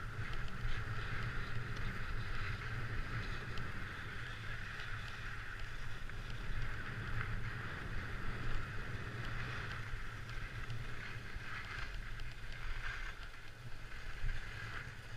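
Skis sliding over packed snow and wind rushing past a GoPro action camera during a downhill ski run: a steady rushing hiss over a low buffeting rumble, turning patchier in the last few seconds.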